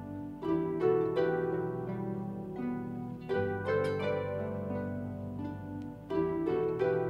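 Solo harp playing: plucked notes ringing over sustained low bass notes, with a fresh group of notes struck about half a second in, again near 3.3 s and around 6 seconds in.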